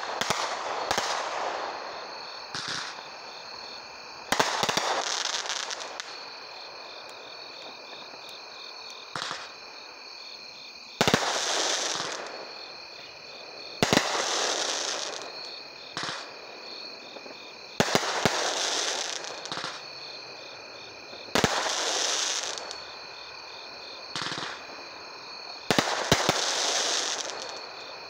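A 500-gram consumer firework cake firing aerial shells. A sharp bang comes every two to five seconds, and each is trailed by a second or two of hiss and crackle.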